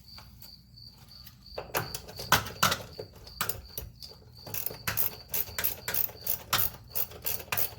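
A cricket chirping in short high trills, over metallic clicks and clinks of hand tools on the fuse box bolts. From about five seconds in the clicks come evenly, about four a second.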